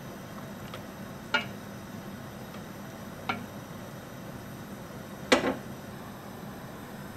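A wooden spatula stirring dumplings in a stainless steel pot of simmering water knocks against the pot twice, and about five seconds in a glass lid is set down on the pot with a double clink, the loudest sound. A steady low hiss of the gas burner and hot water runs underneath.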